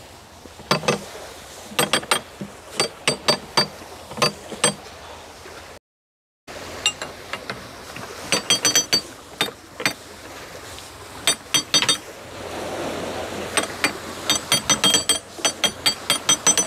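Canal lock paddle gear being wound up with a windlass: the ratchet pawl clicks in quick runs of metallic ticks, with pauses between turns.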